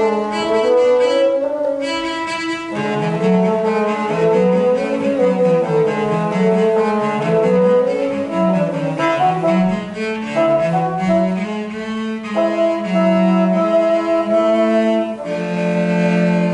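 Cello and bassoon playing a chamber-music duet, two lines moving against each other with many changing notes.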